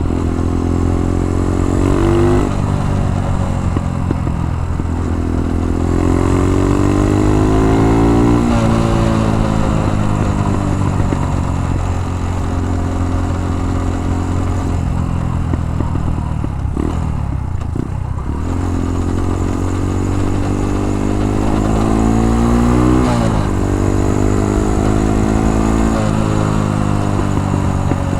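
Single-cylinder four-stroke engine of a Dax 125 minibike under way, revving up and dropping back in pitch several times as it is accelerated and shifted. It runs with a loose, leaking exhaust.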